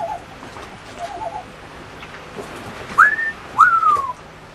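African grey parrot calling: two short low warbling sounds near the start, then two loud whistles about three seconds in, the first rising and holding its pitch, the second rising and then sliding down.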